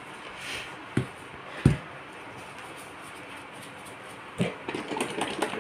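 Food-preparation handling sounds: gloved hands working over a plastic mixing bowl. There are two dull thumps about a second in, the second one louder, then a short run of crinkling, rustling and light knocks near the end.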